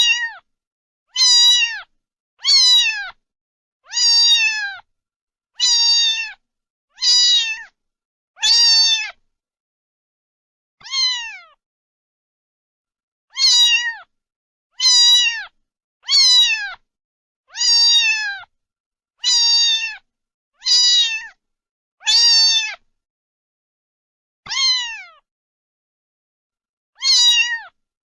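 A cat meowing over and over, high-pitched calls of about half a second each that drop in pitch at the end, coming roughly every second and a half, with two longer pauses.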